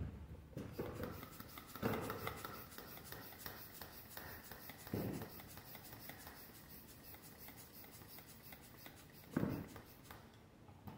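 Rapid, even rasping strokes of a hand tool worked against a rubber volleyball during a valve repair, several strokes a second, stopping near the end. A few louder knocks come near the start and about 2, 5 and 9.5 seconds in.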